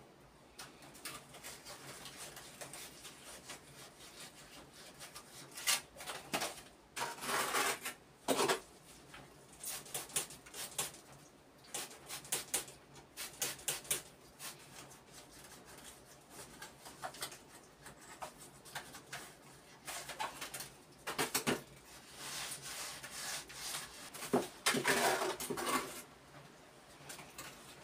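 A steel mason's trowel scraping and tapping as mortar is scooped from a bucket and pressed into the joints of a stone wall. It comes as a string of short scrapes and clinks, with louder runs of scraping about a quarter of the way in and again near the end.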